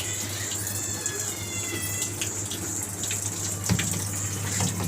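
IFB 6.5 kg top-load washing machine taking in water, a steady rushing of the fill water over a constant low hum. A short high, thin tone sounds about a second in, and a single knock comes past the middle.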